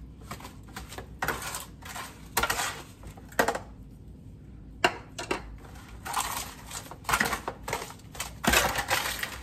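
A spoon scraping brown sugar out of a measuring cup and stirring it into melted butter in a disposable aluminum foil pan, in short irregular scrapes with some crinkling of the foil. There is a longer run of scraping near the end.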